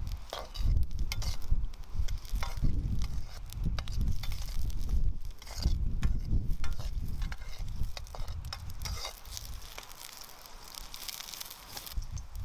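Vegetables sizzling in a hand-forged wok over a wood campfire while a forged wok spoon stirs and scrapes them against the pan, with the fire crackling. The stirring clatter stops about eight seconds in, leaving a quieter sizzle and hiss.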